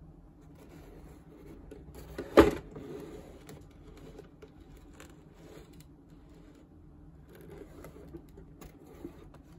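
A cardboard model-kit box being handled and tilted on a desk: soft rubbing and small taps, with one sharp knock about two and a half seconds in.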